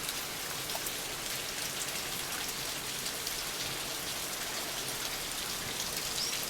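Steady patter of water dripping from the seeping rock of a moss-covered spring grotto, many small drops landing close together.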